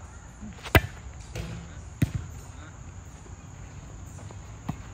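Volleyball impacts in play: three sharp smacks of the ball, the loudest about a second in, another at two seconds and a lighter one near the end.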